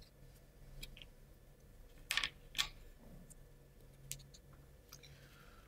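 Small laser-cut plywood model parts clicking as they are fitted together by hand: a handful of short clicks, the two loudest about two seconds in.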